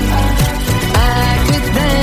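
Dance-pop music with a steady beat, a kick drum hitting about twice a second under sustained synth or vocal lines.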